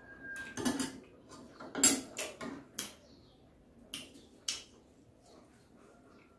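Metal ladle clinking against ceramic bowls as soup is ladled from a serving bowl into a small bowl: a series of sharp clinks, the loudest about two seconds in.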